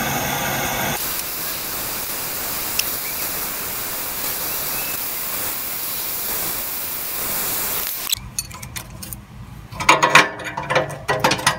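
Propane torch flame hissing steadily, heating a seized exhaust oxygen sensor to expand the metal so it can be broken free. The hiss stops abruptly about eight seconds in, followed by a few light knocks and clicks of handling near the sensor.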